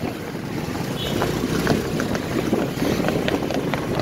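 Wind buffeting the microphone in a steady rush, with a scatter of sharp clicks through it.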